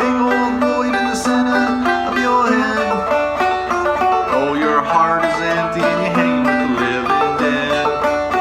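Five-string banjo, a Gold Tone Carlin CC12 in double D tuning, played clawhammer style: a steady stream of plucked, ringing notes.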